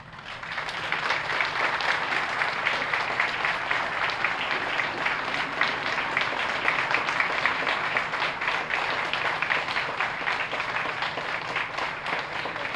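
A large audience applauding, swelling within the first second and then continuing steadily.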